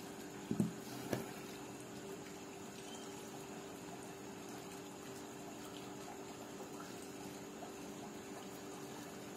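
Two light knocks from plastic model kit parts being handled, about half a second and a second in, over a steady background hum with a faint high whine.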